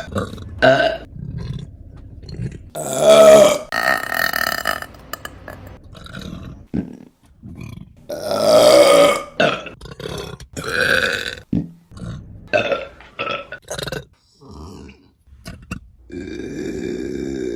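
Women burping one after another: a run of short belches, with two long, loud ones about three seconds and eight seconds in.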